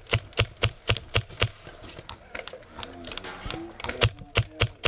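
Airsoft guns firing single shots as sharp cracks: a quick run of about six at roughly four a second, then scattered shots and a short cluster near the end.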